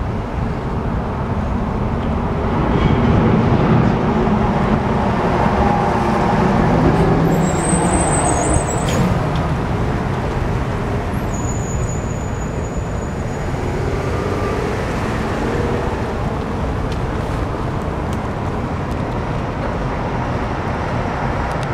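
Freight cars of a CN train rolling over an elevated railway bridge: a steady rumble and clatter of wheels on rail, with a brief high wheel squeal about eight seconds in and a longer one a few seconds later.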